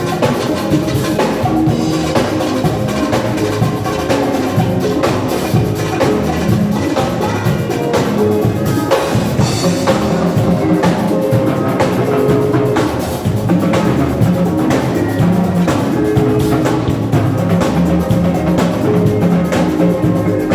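Band music with a drum kit keeping a steady beat of kick and snare under bass and other instruments.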